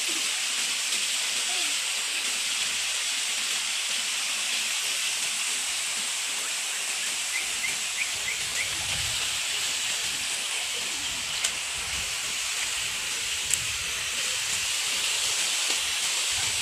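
Steady rush of water falling from a small waterfall and spout into a stream pool, a constant even hiss. A few faint clicks and low rumbles come in the second half.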